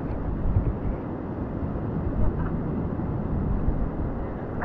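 Wind buffeting the microphone in a steady low rumble, over the wash of surf.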